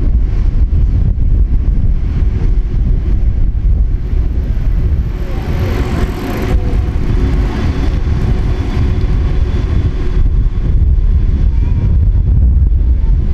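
Street traffic noise with heavy wind buffeting the microphone; a vehicle passes around the middle, louder and hissier for a couple of seconds.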